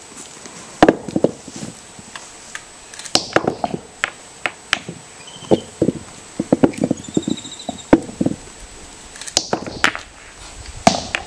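Capuchin monkey pounding a palm nut with a hand-held stone on a wooden log anvil: repeated sharp knocks in irregular bunches. A bird gives short high trilled calls about halfway through.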